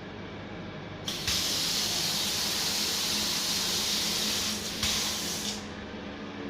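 Water spraying hard from a bathtub tap, turned on about a second in to test that it works and shut off abruptly after about four and a half seconds.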